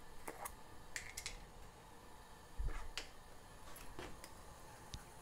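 Quiet kitchen handling sounds over a faint steady hiss: a few light scattered clicks and taps, with a dull bump about two and a half seconds in.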